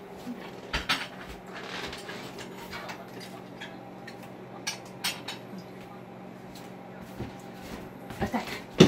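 Dishes and tableware clinking and knocking as they are handled at a wooden dish cupboard: scattered separate clinks, with the sharpest knock near the end.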